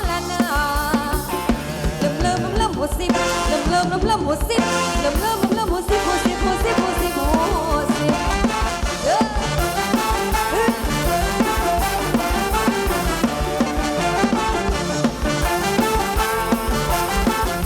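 Ramwong dance music from a live Thai band played over a PA system: a steady dance beat with a melody line and no recognisable sung words.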